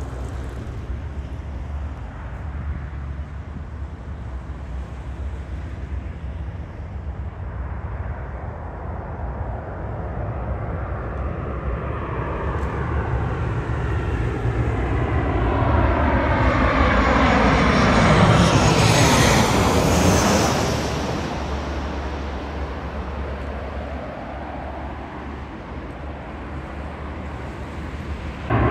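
Twin-engine jet airliner on final approach passing low overhead: the engine noise builds to a peak about two-thirds of the way through, its whine falling in pitch as the jet goes over, then fades. Just before the end, louder jet noise starts abruptly.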